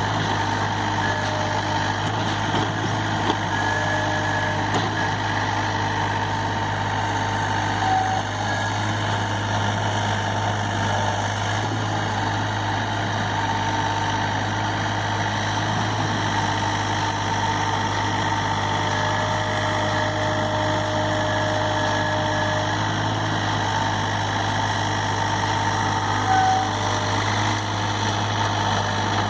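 SANY SY35U mini excavator's diesel engine running steadily at an even speed, with short higher-pitched tones coming and going over it.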